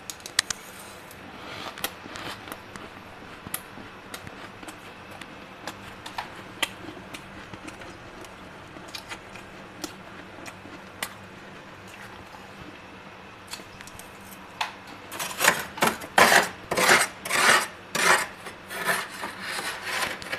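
Soft, powdery freezer frost crunching: scattered faint crackles and clicks, then from about fifteen seconds in a run of loud crunches, about two a second.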